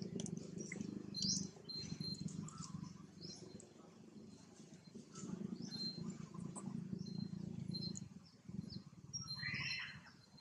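Small birds chirping in short repeated notes, with a low rumble of background noise that swells and fades. Near the end a louder single squealing call rises and falls.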